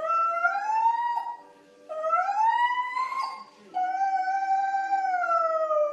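A husky howling: three long calls, the first two rising in pitch and the third held level before it starts to fall near the end.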